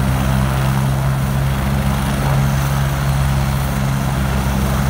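Agusta A109K2 helicopter running steadily on the ground after start-up, its twin turboshaft engines and turning main rotor giving a constant low drone with a whining hiss above it.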